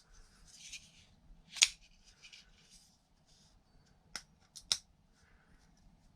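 Spyderco Paramilitary 3 Lightweight folding knife being worked by hand: three sharp metallic clicks of the blade and compression lock opening and snapping shut, one early and a pair close together later, with soft handling rustle between.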